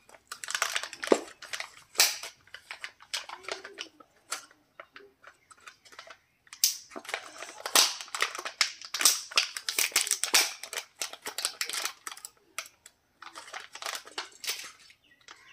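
Foil wrapper of a chocolate toy egg crinkling and crackling as fingers handle and fold it, in bursts of sharp crackles with a pause of about two seconds around five seconds in.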